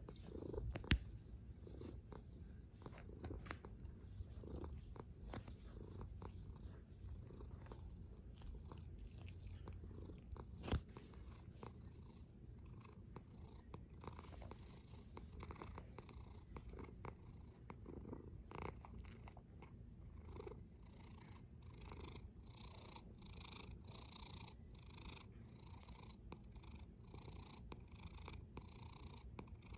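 A sleeping cat snoring softly with a low, steady rumble. There are two sharp clicks, one about a second in and one around ten seconds in. From a little past halfway, a faint rhythmic breathy hiss comes about twice a second.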